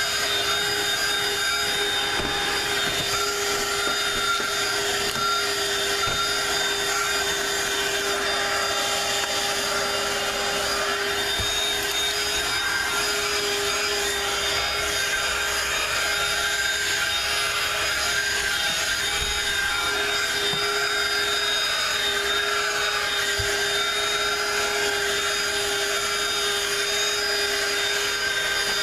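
Dirt Devil Quick Flip Pro cordless handheld vacuum running with a steady motor whine, its nozzle worked over car floor carpet to suck up dirt.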